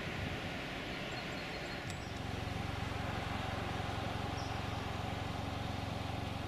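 Wind and outdoor noise for about two seconds, then a sudden cut to a steady low hum of a car engine idling.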